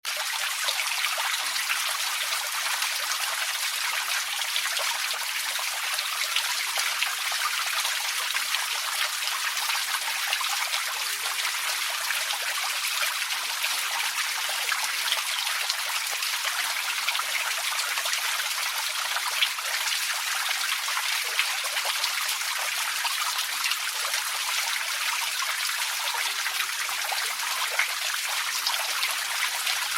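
Small outdoor water fountain: water trickling and splashing steadily into its basin, with a constant patter of small drops.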